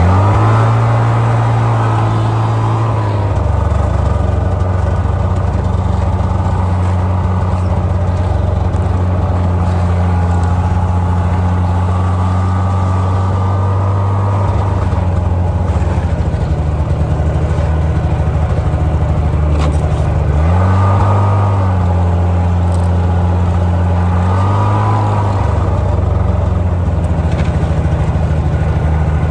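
Engine of a small motorized snow-and-swamp towing vehicle running steadily while it drives over snow pulling a loaded sled. The engine note steps up about a second in and drops a little after three seconds. It rises briefly twice later on, about four seconds apart.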